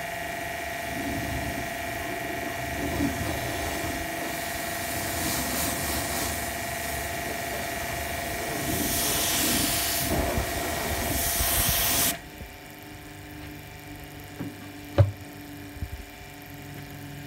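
Pressure washer running, its motor giving a steady whine under the hiss of the water jet on the car. The hiss swells and then cuts off suddenly about twelve seconds in, leaving a quieter hum, and there is a single sharp click about three seconds later.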